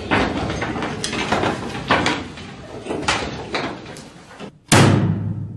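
Wooden classroom desks knocking and thumping as students bang against them and settle into their seats, a string of separate knocks. One much louder bang comes near the end.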